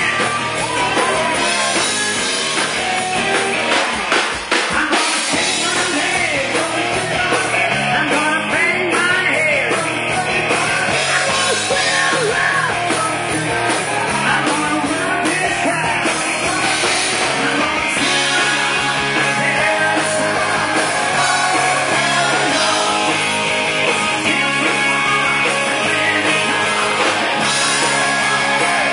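Live rock band playing loud: distorted electric guitar, bass guitar and drum kit, with a singer's vocals over them.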